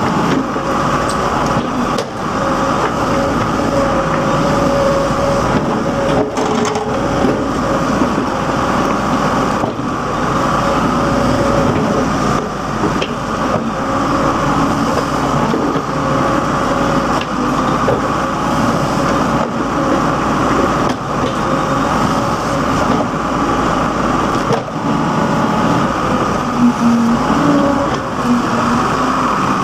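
Case 580 backhoe loader's diesel engine running steadily while working, with a whine above the engine note.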